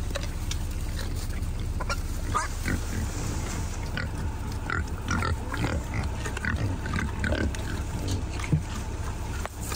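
A group of wild boars feeding close by, grunting and giving many short squeals, with scattered sharp clicks among them.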